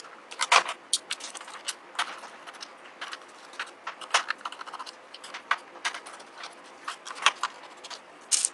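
Small screwdriver unscrewing the screws of a circuit board in a plastic keyboard case: a run of irregular sharp clicks and ticks, a few of them louder.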